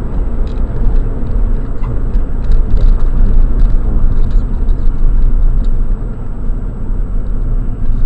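Steady low rumble of a car's tyre and engine noise heard from inside the cabin while driving at road speed, easing a little near the end as the car slows.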